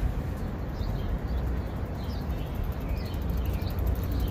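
Steady outdoor street rumble with several short, high bird chirps about once a second.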